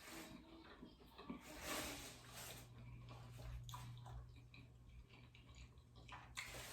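Faint, wet eating sounds of someone chewing food, with small clicks from the mouth. A low steady hum comes in about two seconds in.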